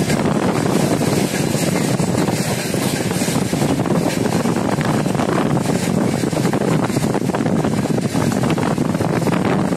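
Freight train of rail tank cars and covered boxcars rolling past: a steady rumble of steel wheels on the rails, with a dense clatter running through it.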